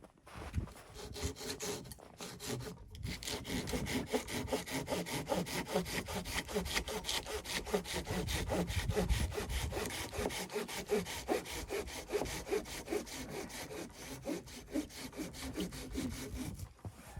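Hand saw cutting through wood in quick, even back-and-forth strokes, with a short pause about three seconds in.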